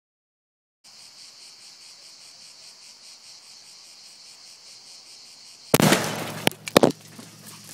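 A CO2 canister packed with 15 g of black powder explodes with one loud sharp blast and a short decaying tail, followed within about a second by two sharper cracks. Insects chirr steadily and high-pitched throughout.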